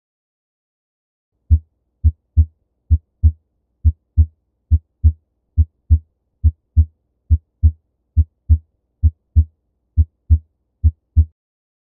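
Normal heart sounds heard through a stethoscope: a steady lub-dub, the first and second heart sounds in close pairs, about 68 beats a minute, with clean silence between beats. The beats start about a second and a half in.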